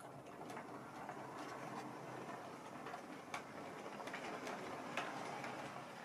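Model railway coaches rolling over points: a steady, faint running noise with irregular clicks as the six-wheeler's metal wheels cross the rail joints and frogs, with two sharper clicks, one past the middle and one about five seconds in.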